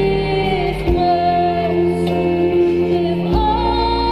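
Live music: a woman singing long held notes over instrumental backing with a steady bass, her voice moving up to a higher note about three seconds in.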